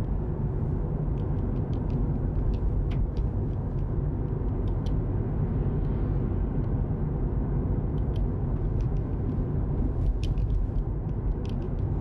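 Road and tyre noise heard inside a Tesla Model 3's cabin while it cruises at a steady 30 mph: an even low rumble with faint, scattered ticks, and no engine note from the electric drivetrain.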